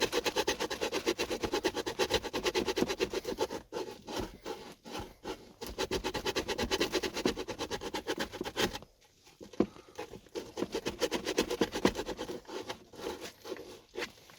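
Sandpaper rubbed back and forth by hand in quick, even strokes, taking material off so the threaded USB socket will fit its opening. There is a brief pause about nine seconds in before the sanding resumes.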